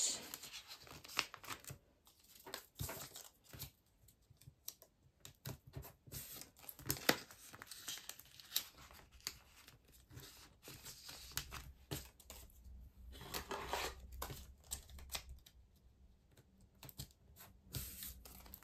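Plastic binder pocket pages rustling and crinkling as cards are slid into the pockets, with scattered small taps and clicks and a few longer sliding swishes.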